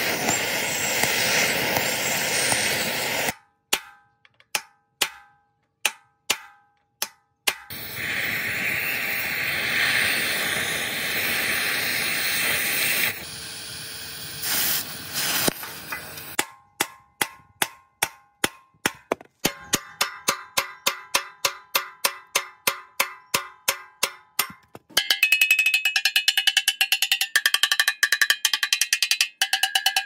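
Gas torch hissing steadily on a rusted steel wheel hub, broken by a few spaced hammer blows that ring off the metal. In the second half, hammer strikes on steel come in a steady run of two or three a second, each with a metallic ring, then turn faster and louder a few seconds before the end.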